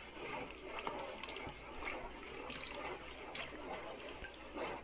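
Cooking oil, mixed with bleach, poured from a plastic bucket in a stream into a plastic basin of lye solution: a faint liquid trickle and splash.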